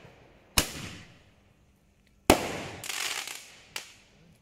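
Hand-held roman candle firing: three sharp pops, each followed by a fading hiss.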